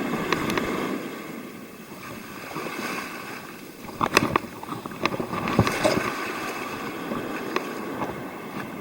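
Surf washing on the beach with wind on the microphone, and a few sharp clicks about halfway through.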